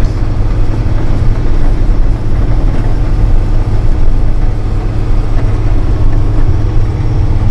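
Heavy diesel truck's engine running steadily under way, heard from inside the cab as a constant low drone with road noise.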